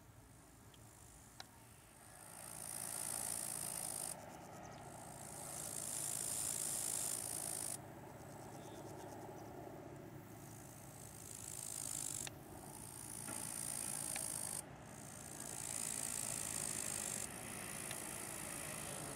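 Sailplanes passing low overhead on landing approach: a hissing rush of air that swells as each glider nears. It happens several times, each time cut off suddenly.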